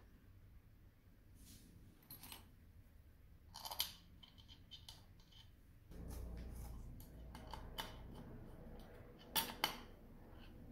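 Light clicks and knocks of hands and a screwdriver working on a motorcycle's aluminium alternator cover and stator, with a low rustle from about six seconds in and two sharp clicks near the end.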